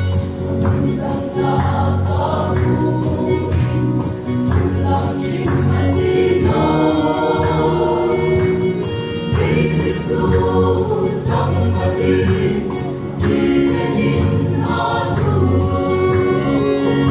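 A mixed choir of men and women singing a gospel hymn in harmony, over a steady percussive beat.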